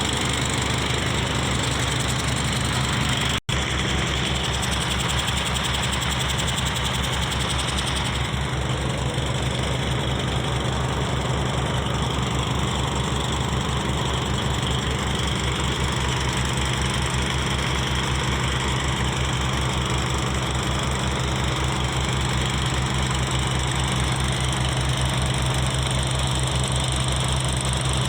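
Diesel engine driving a drainage water pump, running steadily at a constant speed, with a momentary break in the sound about three seconds in.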